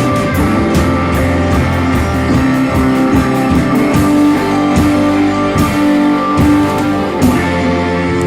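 Band playing rock music: guitar over drums, with regular cymbal and drum hits.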